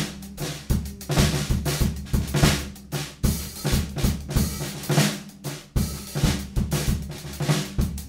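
Jazz drum kit played live, a busy run of snare, bass drum, rimshot and cymbal strokes, with low bass notes sounding underneath.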